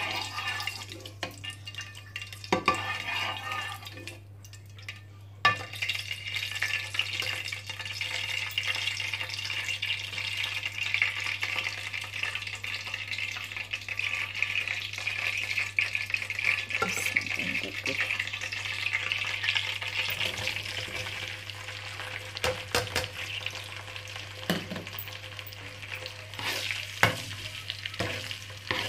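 Sliced onions frying in hot oil in a non-stick pot, sizzling steadily, stirred with a metal ladle that gives occasional clicks and scrapes against the pot. The sizzle drops out briefly about four seconds in and comes back a second or so later.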